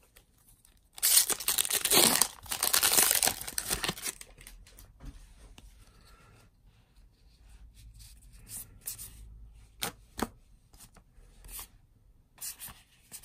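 A Magic: The Gathering booster pack's wrapper torn open, a loud crinkly tearing starting about a second in and lasting about three seconds. Then soft handling of the cards with a few sharp flicks as they are sorted.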